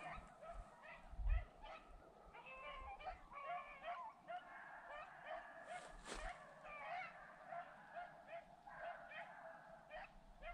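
Faint pack of beagles baying while running a rabbit: many short, overlapping yelps and bawls. A low thump about a second in.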